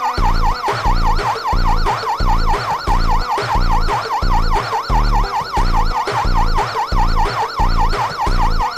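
Siren-like alarm tone from an Arduino, sweeping up and down about four to five times a second, over a low pulse that comes about twice a second.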